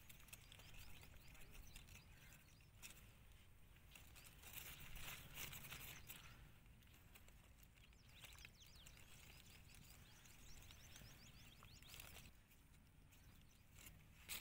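Near silence: faint rustling of a plastic bag and of hands working crumbly flour dough bait, with faint bird chirps now and then.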